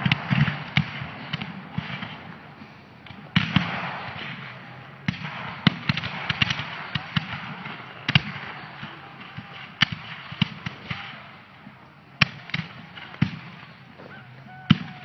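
Distant reenactment musket fire: irregular cracks of blank-loaded rifle-muskets, some in quick ragged runs, with a few louder single shots standing out, over a steady outdoor hiss.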